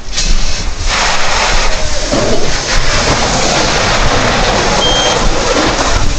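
Fire hose streams spraying water with a steady rushing noise that swells in about a second in, over the low rumble of a fire engine's pump running. A short high beep sounds near five seconds.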